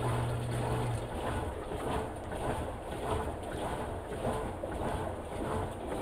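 Insignia top-load washing machine agitating its wash load: water sloshes in repeated surges, a little faster than one a second. A steady hum cuts off about a second in.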